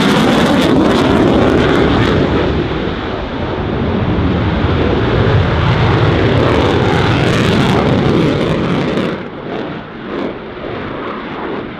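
Lockheed Martin F-35A fighter's single Pratt & Whitney F135 afterburning turbofan, loud jet noise as it flies a banking pass. The noise falls away noticeably about nine seconds in as the jet moves off.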